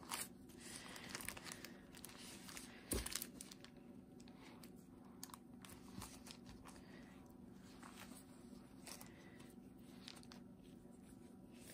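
Faint crinkling and soft tearing as plastic-gloved hands pull apart a freshly baked condensed-milk bread loaf on parchment paper, with one sharper knock about three seconds in.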